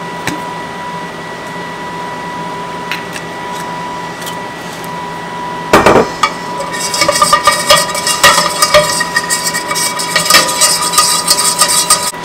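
A whisk stirring a flour-and-oil roux in a pan, clicking and scraping rapidly against the metal. It starts with a single knock about six seconds in, over a steady hum with a constant whine underneath.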